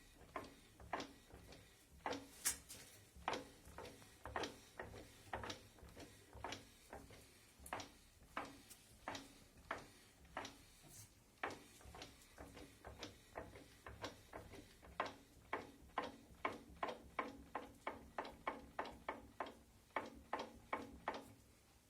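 Repeated sharp knocks from the drivetrain of a 2008 Renault Mégane II 1.6 with automatic gearbox, the gearbox in neutral: about one a second at first, quickening to two or three a second in the last few seconds. This is the knock the car makes on acceleration and braking, still present in neutral, so the parking pawl that some suspected is not its cause.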